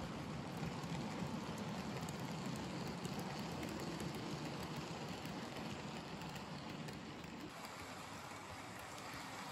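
Model railway tank wagons rolling past on the track: a steady rumble and rattle of small wheels. It drops a little in level about seven and a half seconds in.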